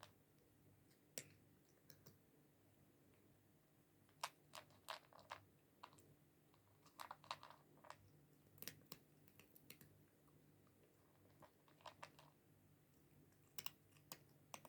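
Near silence: faint room tone broken by scattered soft clicks, some coming in quick little clusters.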